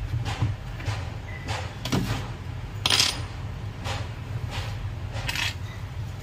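A laptop motherboard being handled on a workbench: a series of light clicks and knocks, the sharpest about three seconds in, over a steady low hum.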